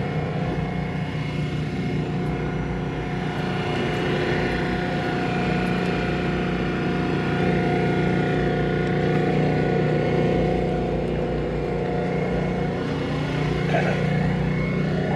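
A car engine idling steadily, an even low hum with a constant pitch.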